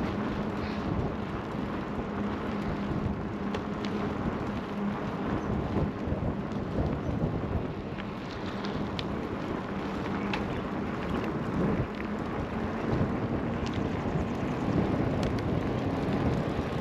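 Steady rumbling noise of wind buffeting the microphone, with a few faint clicks.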